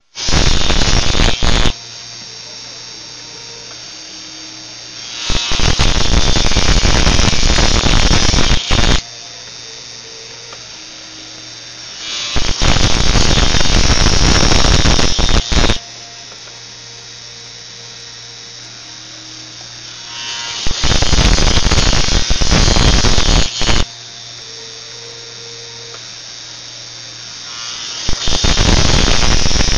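Electric drilling machine's motor running with a steady hum, broken by loud, noisy bursts of three to four seconds each as the drill cuts into paper, repeating every five to eight seconds, about five times.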